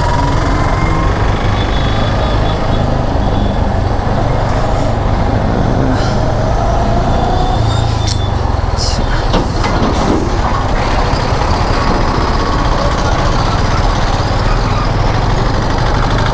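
Motorcycle on the move: a steady rush of wind over the rider's microphone with engine and road rumble underneath, and a few brief sharp knocks about halfway through.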